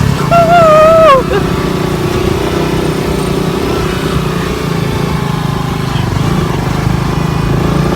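Motorcycle engine running steadily as the bike rides along. A voice calls out briefly with a falling pitch in the first second.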